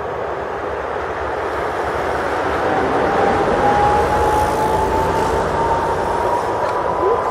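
Business jet's turbofan engines spooling up. A steady rushing roar grows louder, and from about two seconds in a thin whine joins it, slowly rising in pitch.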